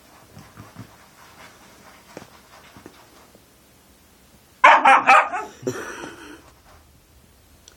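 Husky puppy letting out a sudden burst of loud barks and yips about halfway through, followed by a shorter, quieter run of yelps as it lunges in play. Before that, only soft scratching taps of fingers on a couch cushion.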